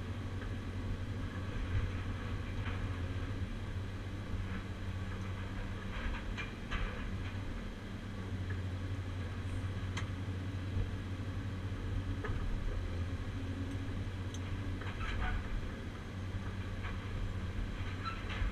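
Caterpillar 345C UHD demolition excavator's diesel engine running steadily, heard from inside the cab as a constant low drone. A few short metallic clanks come through as the Atlas Copco CC 4700 shear handles scrap metal.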